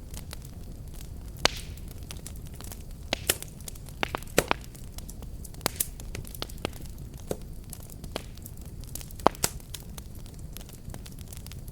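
Wood fire burning with a steady low rumble, sharp crackles and pops scattered at irregular intervals.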